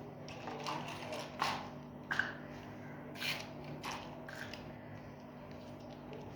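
Small plastic pieces of a miniature toy kitchen set being handled, giving a scatter of light clicks, taps and rustles over the first few seconds, then quieter.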